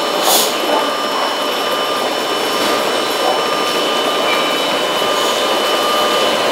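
Steady whirring machine hum on an underground train platform, with a few thin whine tones held throughout, beside a stopped electric express train. A brief hiss comes about a third of a second in.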